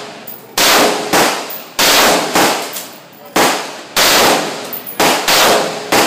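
Rapid gunshots at a shooting range: about nine shots in six seconds at an uneven pace, some in quick pairs, each followed by a decaying echo.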